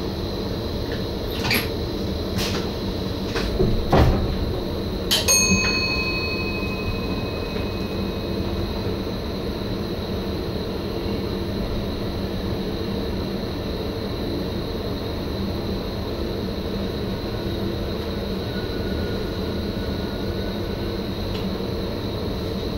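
Cab of an NS Sprinter (SGM) electric train under way: steady running noise with a thin high whine, a few sharp knocks in the first few seconds, then about five seconds in a single bell-like ding from the cab that rings on and fades over several seconds.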